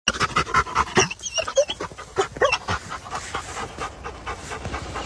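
A dog panting fast and hard, with a few short high-pitched squeaks about a second in.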